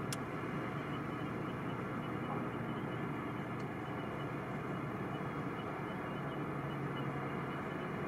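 Steady, even rumble of distant vehicle engines and traffic, with one faint click just after the start.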